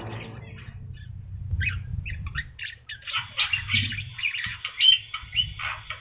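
Caged Javan myna (jalak kebo) calling in vigorous full song, a quick run of short notes. The notes start about a second and a half in and get louder and busier from about three seconds on.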